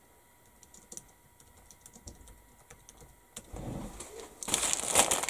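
Light scattered clicks, then from about three and a half seconds in the crinkling and rustling of a thin clear plastic bag holding model-kit sprues as it is handled, getting loud near the end.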